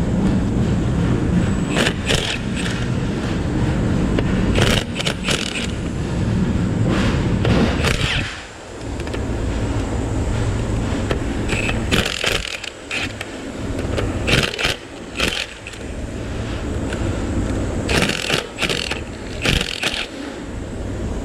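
Metal hand tools and engine parts clinking, clanking and scraping during an engine teardown, in scattered short strikes over a steady low rumble.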